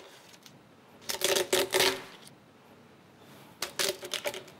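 Kitchen knife crunching and cracking through the shell of a whole roasted crayfish, in two spells of crackling: about a second in and again near the end.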